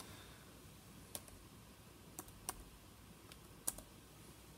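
About five faint, unevenly spaced key taps on a laptop keyboard as an address is typed slowly.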